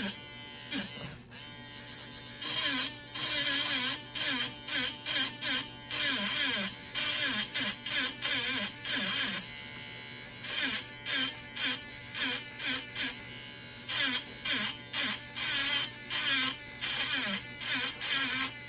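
Cordless diamond-tip engraving pen buzzing against a padlock, in short repeated strokes about twice a second as the tip cuts letters into the metal, each stroke bending the pitch of the motor over a steady background hum.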